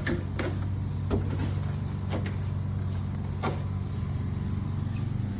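A steady low motor hum, with five short knocks or clicks at irregular intervals over the first few seconds.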